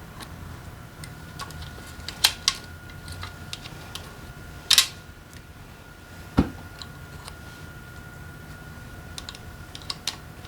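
Scattered metallic clicks and clinks of hand tools and engine parts being handled during motorcycle engine disassembly. A few louder knocks stand out about two, five and six seconds in, the one near six seconds a dull thud, with a faint steady hum underneath.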